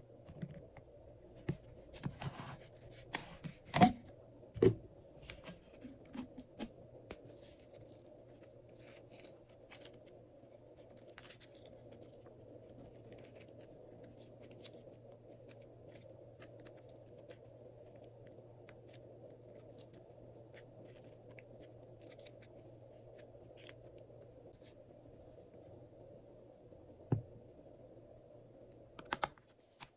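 Glossy slime worked by hand: a cluster of sharp sticky clicks and pops in the first few seconds, then faint scattered crackling, with a couple more pops near the end.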